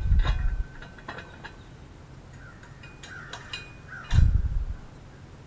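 Metal clinks and knocks from a mower lifting jack being handled and fitted to a garden tractor, with two low thuds about four seconds apart.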